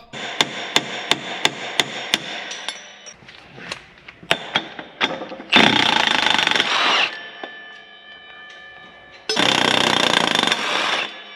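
Impact wrench taking the bolt off a planter's closing disc. A run of regular clicks, about three a second, is followed by two loud bursts of hammering, each about a second and a half long.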